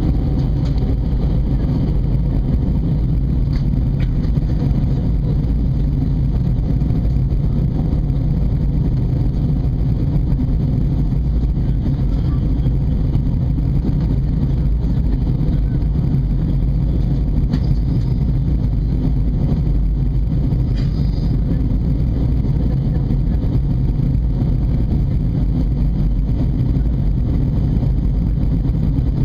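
Steady low roar of an Airbus A320's engines and rushing air, heard inside the passenger cabin in flight, with a faint steady whine.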